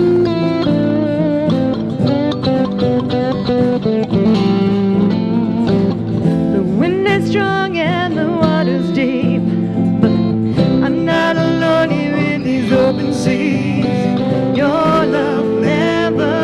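Live worship band playing, with guitars prominent over drums, congas and keyboard.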